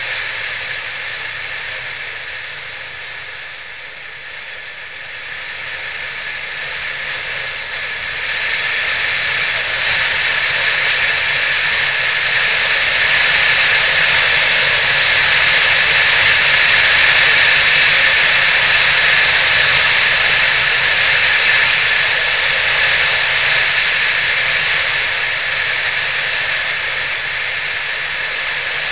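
Wind and road noise rushing over the microphone of a camera mounted on a riding motorcycle. The rush drops as the bike slows about four seconds in, then builds again from about eight seconds as it picks up speed.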